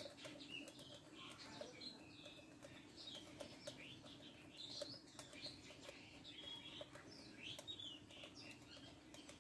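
Faint clicking of a wire whisk against a glass bowl as semolina-and-milk batter is beaten, with small birds chirping in the background.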